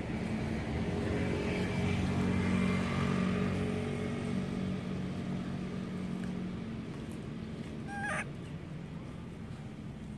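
A motor vehicle passing on the road, its engine hum growing louder to a peak about two and a half seconds in, then fading away. About eight seconds in there is one brief high squeak.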